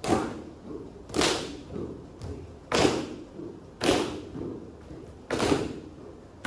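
Bare feet stamping in unison on a hollow wooden stage floor during Indian dance footwork: five heavy stamps a little over a second apart, with lighter footfalls between.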